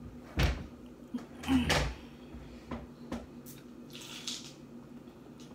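Two heavy thumps about half a second and a second and a half in, then lighter knocks and clatters: someone sitting down at a table near the microphone and handling plates and food.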